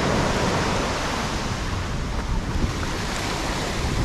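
Surf breaking and washing up a beach as a steady wash of noise, with wind rumbling on the microphone.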